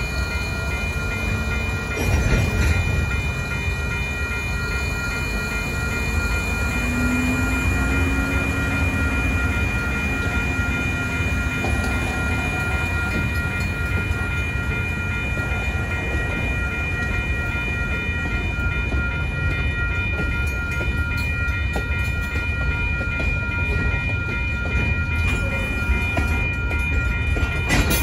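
An electronic railroad crossing bell (WCH E-Bell) rings steadily over the low rumble of a genset switcher locomotive and freight cars rolling through the crossing. Wheels clack over the crossing about two seconds in and again near the end.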